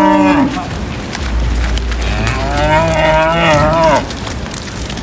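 Cattle mooing: the tail of one long moo right at the start, then a second moo about two seconds in, lasting under two seconds with a wavering pitch. A low steady rumble runs underneath from about a second in.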